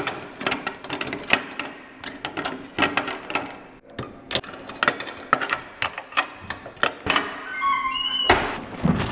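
Combination padlock dial turned by hand on a metal locker, a run of rapid, irregular clicks. Near the end comes a short squeak rising in steps, then the rattle and thump of the lock coming off and the metal locker door opening.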